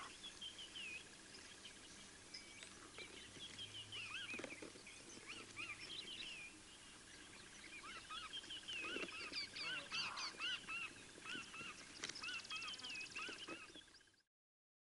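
Chorus of wild birds chirping and calling, many short whistled notes overlapping, with a steady high pulsing trill running underneath from about halfway through. The sound fades out near the end.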